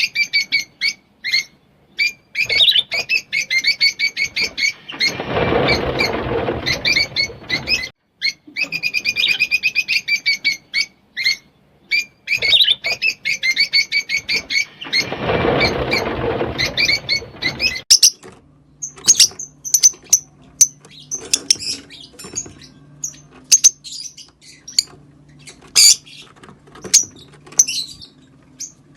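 Green Fischer's lovebirds chirping and singing in fast, rapid-fire chirp trains. Twice a broad rustling noise rises under them for a few seconds. In the last third the chirps turn sparser and higher over a faint low hum.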